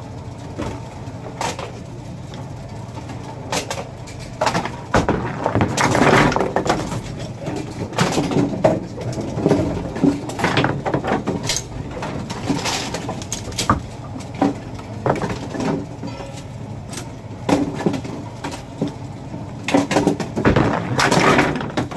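Bowling pinsetter running through its cycle: a steady motor hum under repeated clanks and knocks of the machinery and pins. There is a denser burst of clatter near the end.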